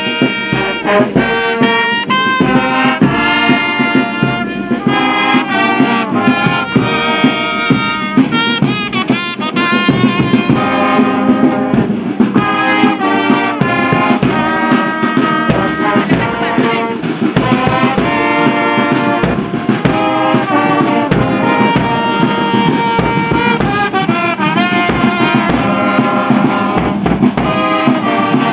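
Marching brass band playing: trombones, trumpets and a tuba carrying a melody in sustained, changing notes over strokes of a bass drum.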